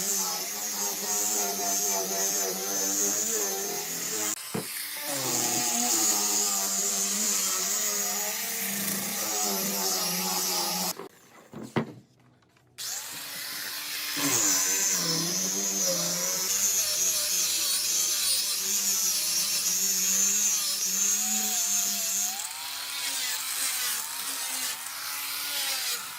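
An electric power tool running, its pitch wavering as the load changes. It cuts out for about two seconds near the middle, then runs on.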